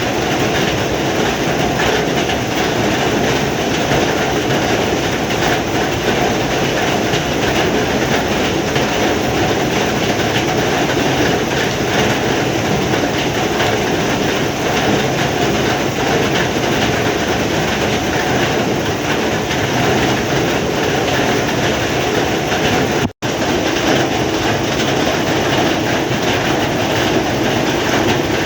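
Heavy rain falling steadily, a dense, even roar of drops. It cuts out for a split second about 23 seconds in, then resumes unchanged.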